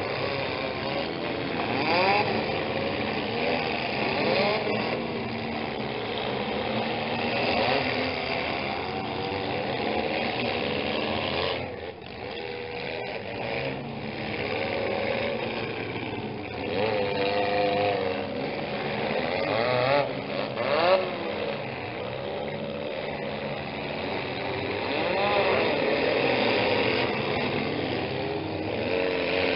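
Several demolition-derby compact cars' engines revving hard and unevenly, their pitch repeatedly rising and falling. There is a brief louder burst about twenty-one seconds in.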